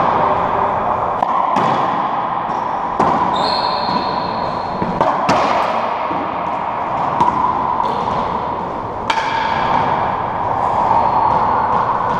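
Racquetball rally in an enclosed court: the hollow rubber ball smacking off racquets, the walls and the floor, sharp hits every second or two, each ringing briefly off the walls. A brief high squeak comes about three seconds in, over a steady background hiss.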